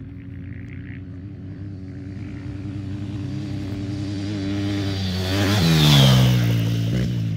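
An off-road racing motorcycle approaches at speed, its engine note growing steadily louder, then passes close by about six seconds in with its pitch dropping sharply as it goes past, before fading away.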